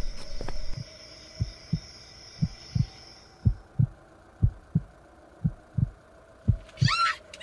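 Heartbeat sound effect: low paired thumps, a lub-dub about once a second. A steady high tone stops about three seconds in, and a brief burst of high chirping comes near the end.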